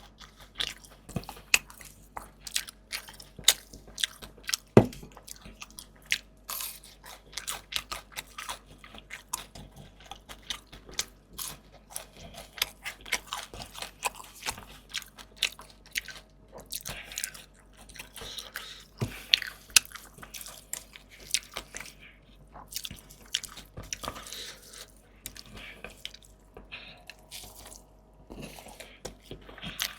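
Close-miked eating: a person biting into and chewing crunchy food, a dense run of crisp crunches with a few louder bites.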